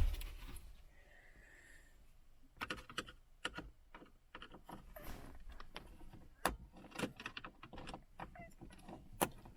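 Scattered light clicks, taps and clatter of plastic dash trim and hand tools being handled while a car radio is being removed.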